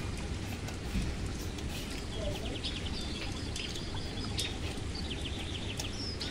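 Small birds chirping in the background, in quick runs of short high notes, over a steady low rumble of ambient noise.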